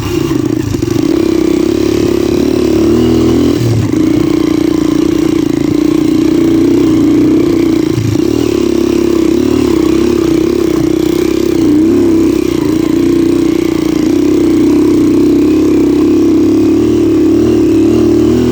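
Motorcycle engine running steadily under way, its pitch wavering with small rises and dips in throttle.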